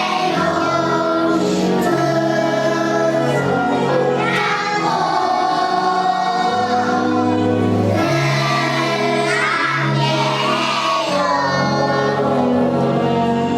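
Kindergarten children's choir singing a song together, with held notes over a steady instrumental accompaniment.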